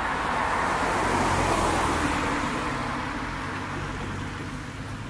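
A car passing close by and driving away, its tyre and engine noise loudest in the first two seconds and then fading.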